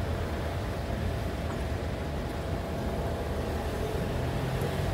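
Steady low mechanical rumble with a faint steady hum over it.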